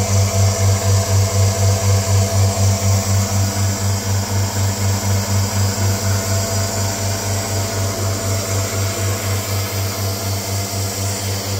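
Petrol-engine-driven milking machine running: the small single-cylinder petrol engine turning the vacuum pump on the vacuum tank. A steady loud mechanical hum with an even throb about three to four times a second.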